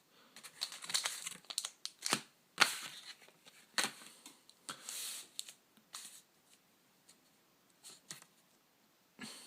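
Pokémon card pack packaging being torn open and crinkled by hand: irregular crackles, rips and clicks, busiest in the first five seconds and sparse after that.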